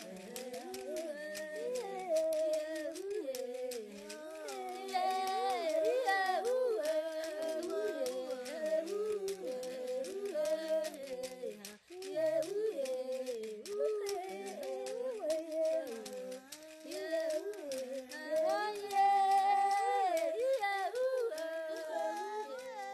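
Background vocal music: several voices singing together in harmony, in phrases, with a short break near the middle.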